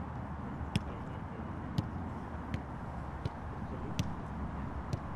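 A football being kicked and juggled between players, each touch a short sharp knock, six of them about once a second, over a steady low background rumble.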